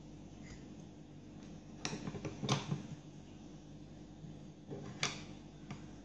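Sharp clicks and knocks as a small brass barrel bolt on a clear acrylic box is worked, three of them louder, near 2, 2.5 and 5 seconds in, over a steady low hum.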